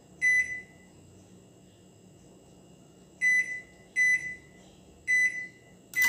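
Electrolux MTD30 microwave oven beeping as keys on its newly fitted membrane keypad are pressed, each beep showing that the key registers. There are five short high beeps: one at the start, then after a pause four more about a second apart.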